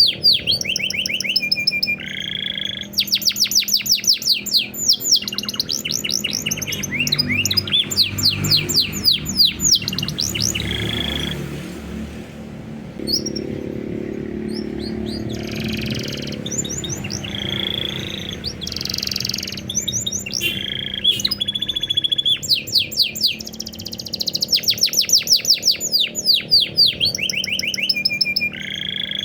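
Domestic canary singing a long, continuous song of rapid runs of sweeping notes and held trills, in the blackthroat-flavoured style used as training song for other songbirds; the song thins briefly about halfway through before resuming in dense fast runs.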